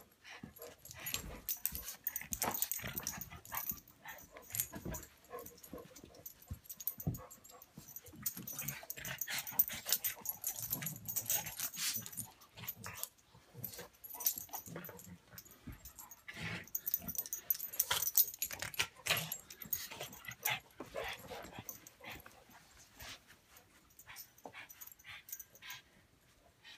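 A pug and an English mastiff playing: irregular dog sounds and scuffling, coming in short spells with brief pauses between.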